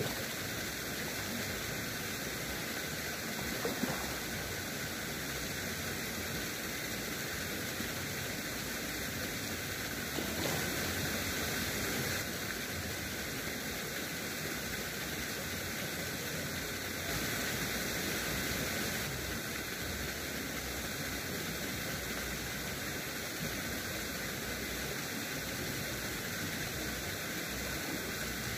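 Steady, even outdoor background hiss with a few faint steady high tones, and no distinct individual sounds.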